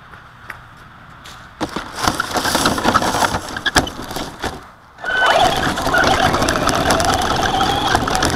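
RC Slash short-course truck scrabbling through dry leaves and brush, with dense crackling and clattering from about a second and a half in. After a short lull near the middle it drives on across gravel, a steady whine from its motor and gears over the crunch of the tyres.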